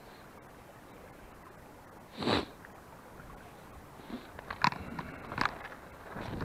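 A short, loud rush of noise about two seconds in, then sharp crunching clicks of feet stepping on a bar of loose river pebbles in the second half.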